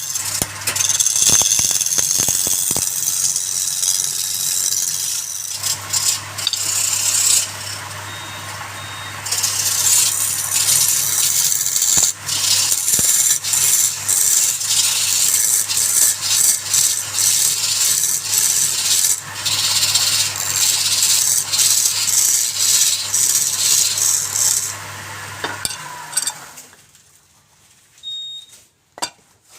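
Wood lathe running with a turning tool cutting against the spinning workpiece: a steady motor hum under harsh scraping and rapid rattling clicks. The motor stops about 26 seconds in and the cutting noise dies away.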